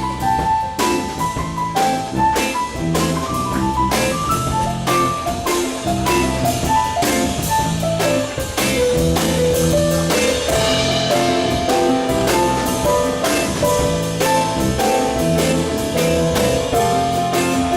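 A live band playing an instrumental passage: a drum kit keeping a steady beat under a stepping melodic lead line, with no singing.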